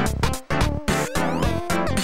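Background music with a steady beat: an upbeat electronic track.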